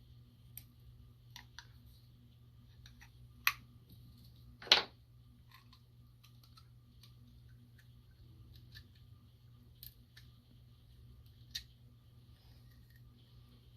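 Small craft items being handled on a tabletop: scattered light clicks and taps, with two sharper, louder clicks about three and a half and five seconds in, over a faint steady hum.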